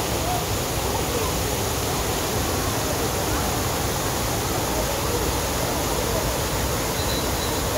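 Wide waterfall spilling over a stone weir into a pool, a steady rushing of falling water.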